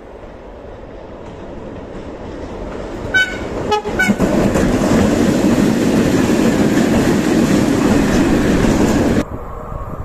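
Freight train passing close by: its locomotive gives two short horn toots, a driver's greeting, as it draws level, then the wagons run past with a loud rumble and wheel clatter. The sound cuts off abruptly about a second before the end, leaving quieter background noise.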